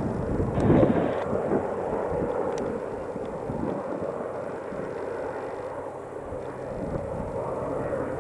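Westland Wessex HU5 and Sea King helicopters flying past, their twin turboshaft engines and rotors making a steady drone.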